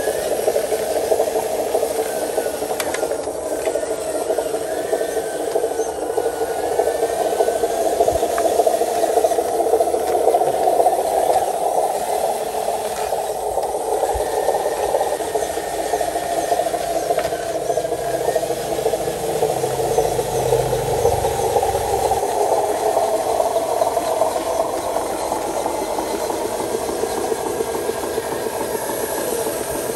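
Radio-controlled scale Hino truck's drive motor and gearbox running steadily with a rattle as it crawls along. The whine rises a little in pitch around the middle and eases lower near the end.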